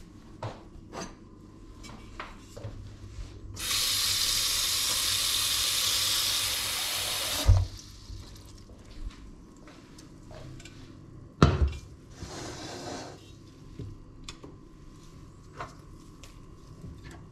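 Kitchen tap running into a stainless steel pot for about four seconds, filling it with water, then a heavy clunk as the full pot is set down. A few seconds later comes a second clunk as it is put on the hob, with light handling knocks and clicks around them.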